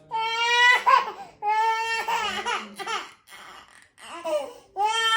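A five-month-old baby crying in long, high-pitched wails, two in a row and a third beginning near the end, in distress as nose drops are given for her cold.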